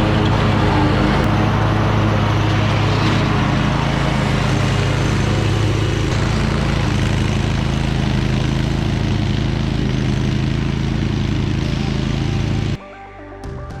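Toro Titan Max zero-turn mower's engine running steadily while mowing. About a second before the end it cuts off abruptly to quiet background music.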